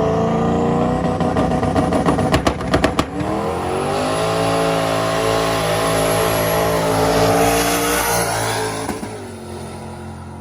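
Car engine accelerating hard, its pitch climbing, with a few sharp pops about two to three seconds in. The pitch drops at a gear change and climbs again through a second long pull, then falls away about nine seconds in as the throttle closes.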